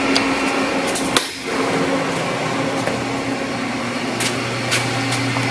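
Fadal CNC mill powering up: a steady electrical hum and fan whir, with a lower mains hum joining about four seconds in. A few sharp clicks sound over it, the loudest about a second in.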